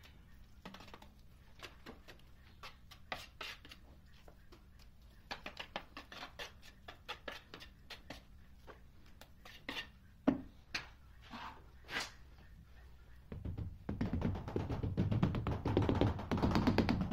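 Rubber mallet tapping a large ceramic wall tile to bed it into the adhesive: scattered short knocks and taps. Background music comes in loudly near the end.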